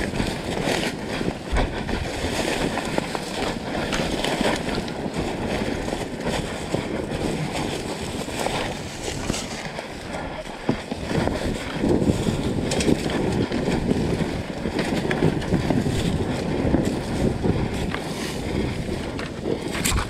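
Dirt bike engine running, with wind buffeting the microphone and scattered knocks.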